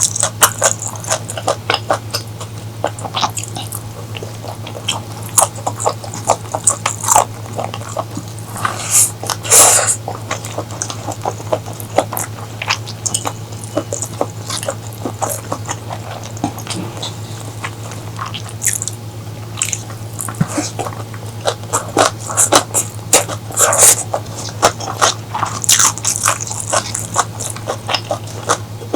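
Close-miked eating: biting and chewing with crunchy clicks and wet mouth smacks, irregular and continuous, over a steady low hum.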